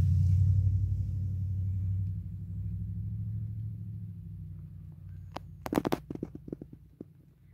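Mother cat purring while nursing her kittens, a low steady rumble that fades away over about five seconds. A quick run of small clicks follows about six seconds in.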